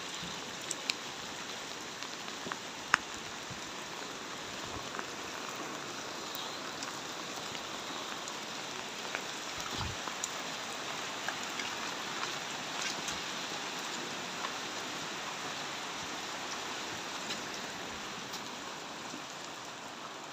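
Steady rain falling on hard surfaces, with scattered sharp drips and taps.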